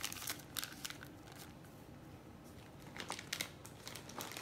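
Clear plastic bags holding wax melts crinkling as they are handled and set down on a countertop: a few short crinkles near the start and again about three seconds in.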